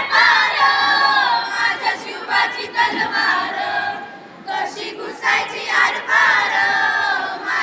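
A group of children singing together in unison, with long held, wavering notes.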